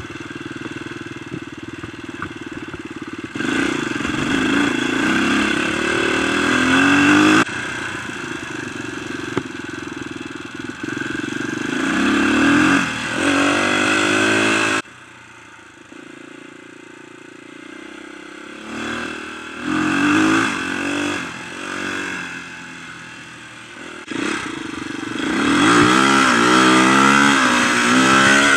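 Dirt bike engine running under the rider, revving up and easing off again and again, its pitch climbing with each burst of throttle. The sound jumps abruptly a few times.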